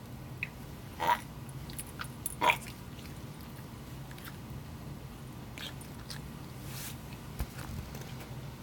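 A pet retching and hacking as it tries to cough something up: two loud, short hacks about a second and two and a half seconds in, then a few fainter short sounds from its mouth and throat.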